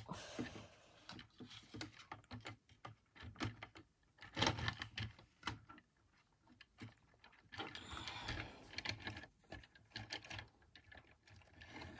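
Light plastic clicks and rattles of a Transformers figure's parts and upgrade-kit pieces being handled and repositioned, with two short busier stretches of handling, about four seconds in and about eight seconds in.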